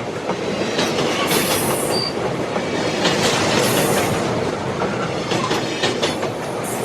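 Train wagons rolling along the rails: a steady rumble with the clickety-clack of wheels knocking over rail joints, and a short high hiss from the wheels a few times.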